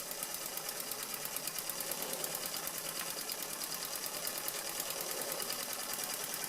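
Doll 320/3 toy steam engine running at speed, its side-valve cylinder and flywheel beating out a fast, even ticking rhythm of several strokes a second.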